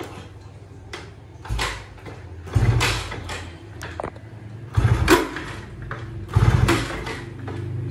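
Yamaha F1ZR two-stroke moped engine being cranked over and over, catching briefly and sputtering out about four times without staying running. This is hard starting on the old carburettor setting after the bike has stood unused a long time.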